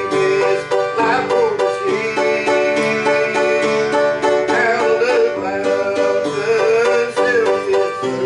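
Bluegrass-style music with a banjo picking quick notes and a melody line above it that wavers in pitch.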